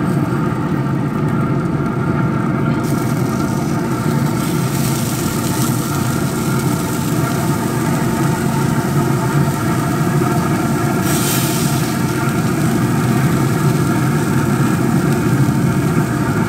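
A motor running steadily, giving a constant mechanical hum with several held tones, and a short hiss about two-thirds of the way through.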